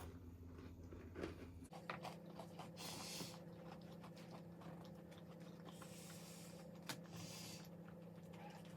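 A person chewing and eating food close to the microphone, with small clicks and a few short rustles, over a steady low hum.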